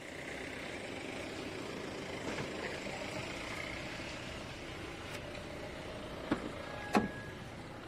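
Jeep Compass running at a steady idle. Near the end the driver's door handle is pulled and the latch opens with two sharp clicks, the second louder and ringing briefly.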